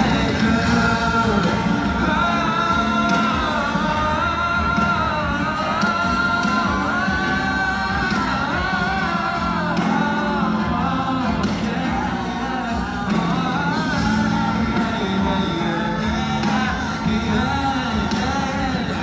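Live pop-rock band music with a lead singing voice, played and amplified in a stadium.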